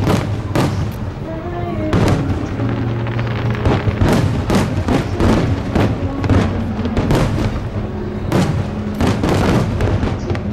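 Aerial fireworks bursting in quick succession, a string of sharp cracks and booms, over loud music.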